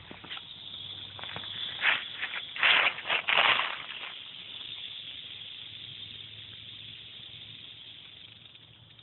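Timber rattlesnake rattling its tail: a steady, high, hissing buzz throughout. A few loud rustling bursts come about two to four seconds in as the phone brushes through leafy plants.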